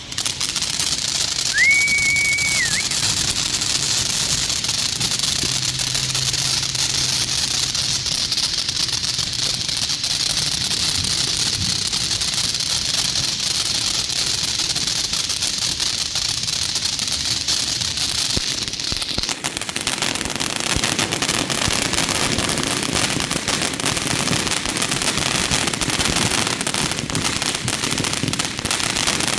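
Ground fountain firework spraying sparks: a steady loud hiss packed with rapid crackling that starts suddenly, with a brief whistle about two seconds in. A little past halfway the hiss drops and the crackle turns rougher.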